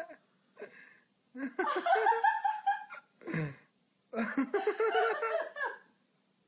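A person laughing in three bouts: a long burst, a short one, then another long one that stops about half a second before the end.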